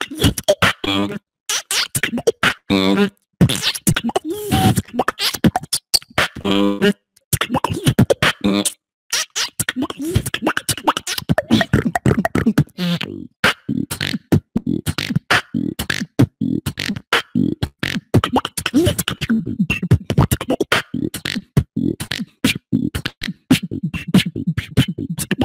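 Solo human beatboxing: rapid mouth-made kicks, snares and hi-hat clicks. Short sung or hummed phrases come in the first several seconds, and a denser, bass-heavy rhythm follows from about nine seconds in.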